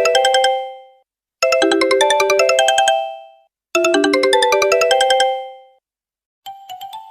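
Smartphone ringtone: a short, fast melodic phrase of clear notes repeating about every two and a half seconds. After a brief pause near the end, a different, quieter ringtone with higher, thinner notes begins.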